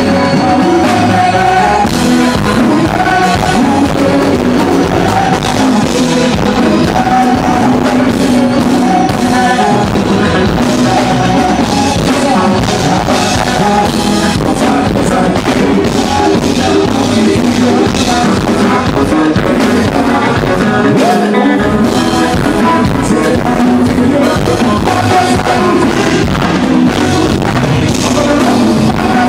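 Haitian konpa band playing live and loud: electric guitars and drum kit, with singing.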